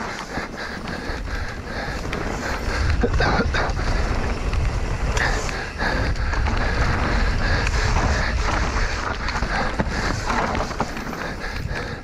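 Enduro mountain bike riding down a rough trail: tyres rolling over dirt and rocks, with a constant clatter of knocks and rattles from the bike, and wind rumbling on the camera's microphone.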